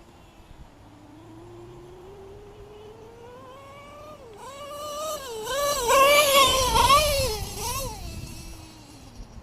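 Nitro RC truggy's LRP .32 engine on a Novarossi race carburettor, running high-pitched. The pitch climbs slowly at first, then rises and falls repeatedly with the throttle and is loudest about six to seven seconds in, before falling away near the end. The high-speed needle is set a bit lean, which the owner says makes her scream.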